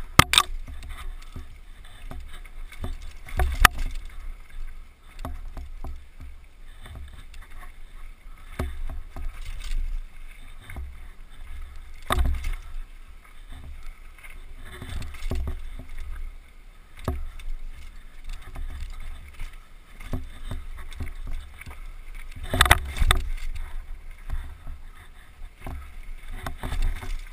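Downhill mountain bike rattling down a rough dirt trail of roots and rocks: a continuous low rumble with frequent knocks and clatter, and a handful of much harder jolts scattered through.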